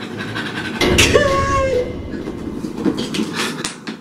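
A coin scraping the silver coating off a paper scratch-off lottery ticket: a continuous rough rasping scratch, loudest about a second in.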